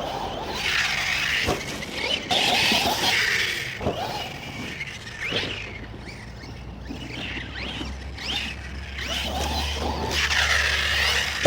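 Arrma Outcast RC truck's brushless electric motor whining as it is throttled up and down in short bursts, with a sharp knock about a second and a half in.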